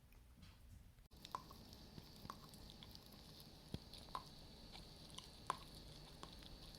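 Shetland sheepdog quietly gnawing a bone: soft, irregular clicks and ticks of teeth on the bone, a few sharper than the rest.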